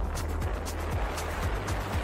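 Music with a steady beat and a heavy bass.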